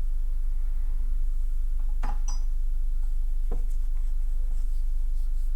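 Steady low electrical hum, with two light clinks of small metal tools or parts handled on a workbench, about two seconds in and again about three and a half seconds in.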